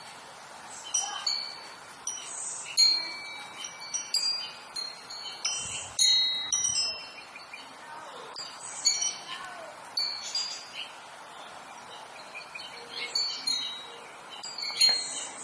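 Birds chirping: many short, clear high notes at steady pitches, several often overlapping, coming in clusters every second or two.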